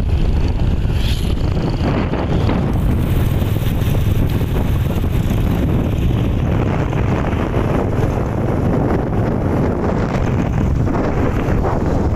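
Steady wind rushing over the microphone of a moving vehicle, with the vehicle's running and road noise beneath.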